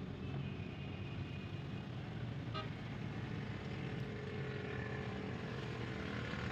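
A motor vehicle's engine running steadily, with one short click about two and a half seconds in.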